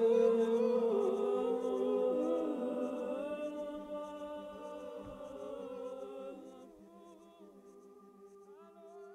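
Closing of the song: layered, held choir-like vocal notes shifting slowly in pitch and fading out gradually to a faint tail.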